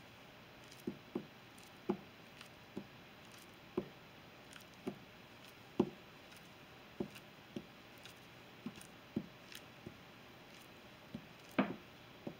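A banana being sliced by hand with a kitchen knife, the slices dropping into a dish: soft, irregular taps, roughly one or two a second.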